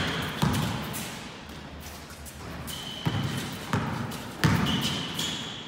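Basketball being dribbled hard on a court floor: a handful of irregular bounces, the loudest about half a second in and near three and four and a half seconds in. Two short high squeaks, about three seconds in and near the end, fit sneakers squeaking on the court during the dribble moves.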